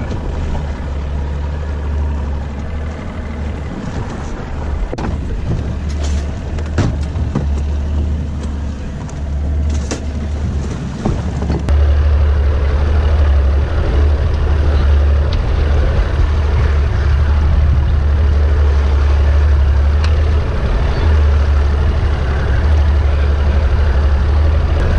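A small fishing boat's motor running under way, a steady low drone with a few knocks on the boat in the first half. It gets louder about halfway through.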